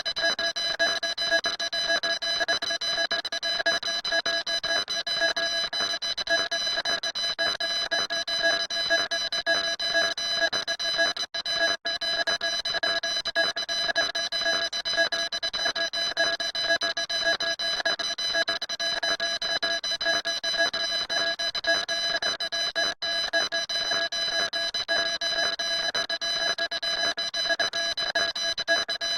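A steady, unchanging tone of several pitches sounding together, alarm-like, with a fast flutter. It cuts out very briefly twice at about eleven seconds in and once more at about twenty-three seconds.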